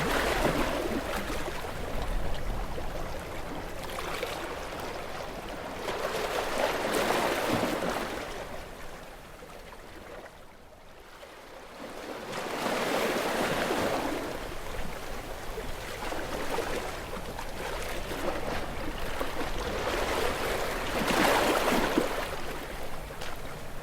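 Sea waves washing against shore rocks, each surge rising and falling back every few seconds. There is a lull about ten seconds in, and the strongest surge comes near the end.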